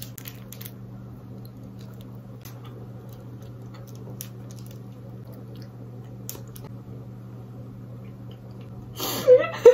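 Quiet, wet chewing of a soft, sticky tamarind-pulp candy (Pulparindo), with a few faint clicks over a steady low hum. A short vocal sound of reaction comes near the end.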